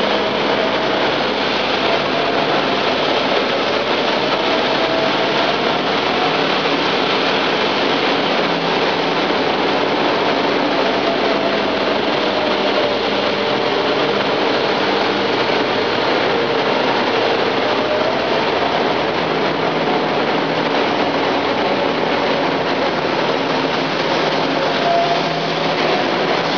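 Gehl loader running with a rotating sweeper-bucket broom: a steady, loud mechanical noise with a faint whine that wavers slowly in pitch.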